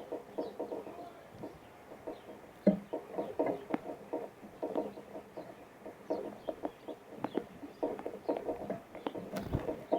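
Birds calling: a dense, irregular run of short low calls several times a second, with faint high chips above them and one sharp knock near the end.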